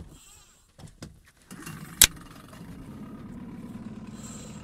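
Small boat's outboard motor comes on about a second and a half in and runs steadily, with one sharp knock just after it starts.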